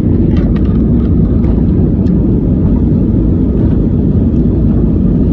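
Airliner cabin noise: a loud, steady low rumble from the engines and airframe while the plane is moving, with a few faint clicks or rattles in the first couple of seconds.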